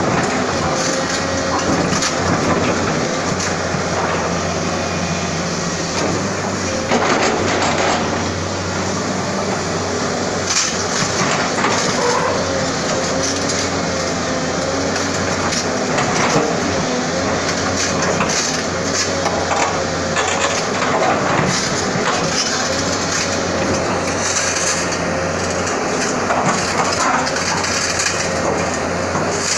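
SANY SY210 hydraulic excavator working in broken rock: its diesel engine drones steadily under load while the bucket scrapes, knocks and crunches through loose stone, giving repeated short cracks and thuds over the engine.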